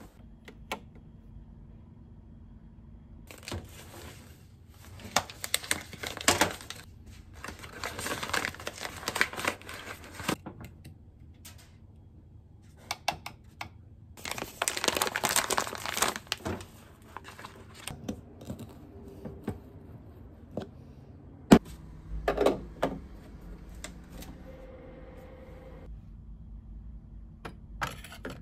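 Bursts of crinkling and rustling as a paper coffee bag is handled and ground coffee is scooped into an espresso portafilter. A single sharp click comes about three-quarters of the way through, followed by a faint steady hum.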